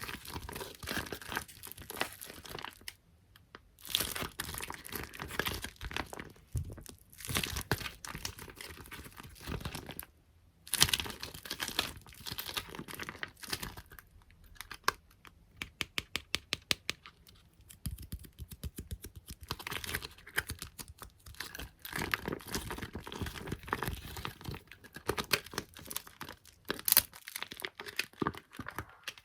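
Close-miked ASMR tapping and sticky patting on squishy toys and stickers, with tacky peeling and crinkling sounds between the taps. Near the middle comes a quick, even run of taps lasting a few seconds.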